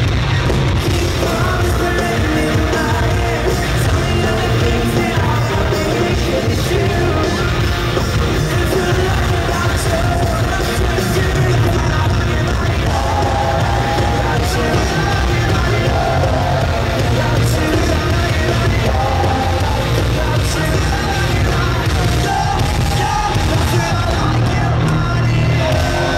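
Live pop-punk rock band playing loud in an arena: electric guitars, bass guitar and drum kit with a lead singer, heard from the audience.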